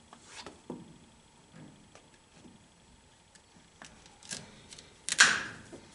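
Hand tool worked against a rubber A/C hose: a few light clicks and taps, then one loud, short crunching snap about five seconds in.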